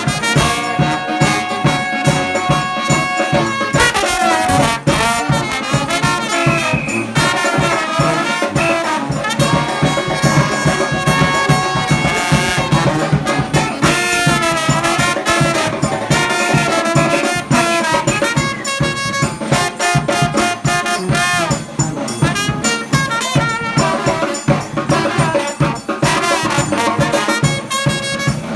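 New Orleans-style brass band playing live: trumpets and trombones carrying the melody over a steady rhythmic beat.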